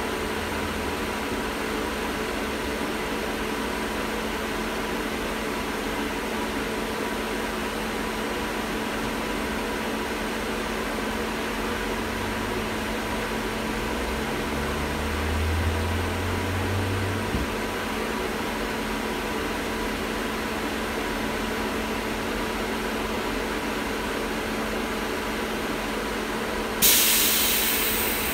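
Steady hum of an LM-68M3 tram heard from inside the car, with a few fixed tones over a low rumble that swells for a few seconds around the middle. A sudden loud hiss breaks in near the end and fades over a second or two.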